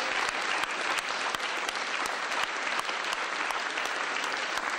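Audience applauding: many hands clapping at once, at a steady level.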